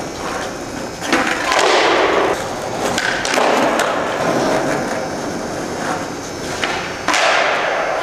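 Skateboard wheels rolling on a concrete garage floor in several runs, broken by a few sharp clacks of the board popping and landing.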